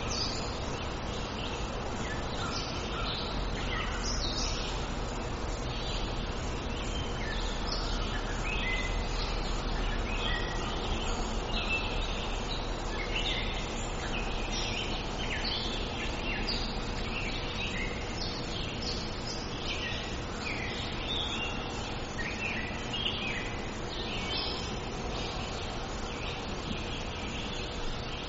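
Many birds chirping and singing in a busy, continuous chorus of short calls, over a steady background hiss and low rumble.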